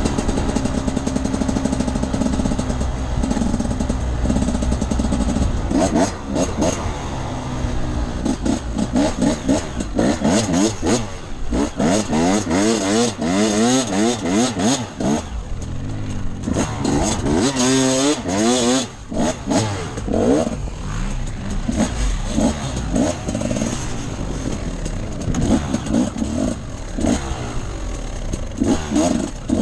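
Off-road enduro motorcycle engine running close to the microphone: fairly steady for the first few seconds, then revving up and down repeatedly as the bike accelerates and backs off.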